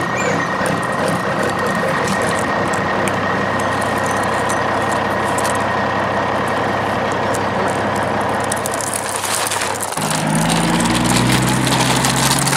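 Truck engine sound running steadily, with a thin held whine over it. About ten seconds in it shifts to a deeper, lower-pitched running note that steps down in pitch.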